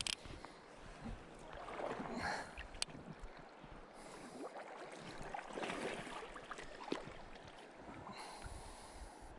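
River water splashing and lapping, with some wind noise on the microphone.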